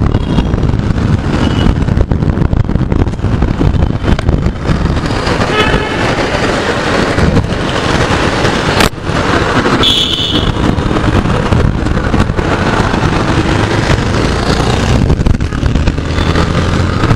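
Yamaha FZ V3.0 motorcycle under way in town traffic: its 149 cc single-cylinder engine running under a steady rush of road and wind noise. A vehicle horn toots briefly about ten seconds in.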